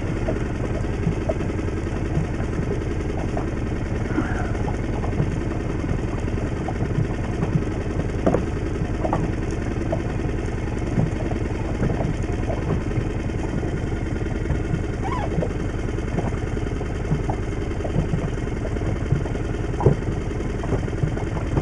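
Boat engine idling steadily, with scattered light clicks and knocks over the hum.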